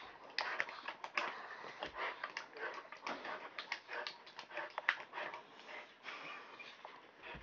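A Rottweiler and a black Chinese pug playing rough with a person: a busy, continuous run of short scuffling and snuffling sounds.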